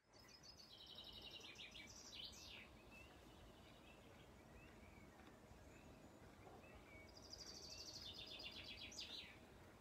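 A songbird sings two trilled phrases, one near the start and one about seven seconds in. Each phrase steps down in pitch and ends with a quick downward sweep, with faint chirps of other birds in between.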